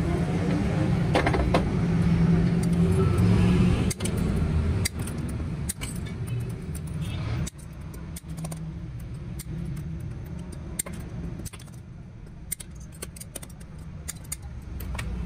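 Hand shears snipping the lugs off lead-acid battery plates: irregular sharp metallic clicks and clinks as the shears bite and the plates are handled. There is a low rumble underneath that is heavier in the first few seconds.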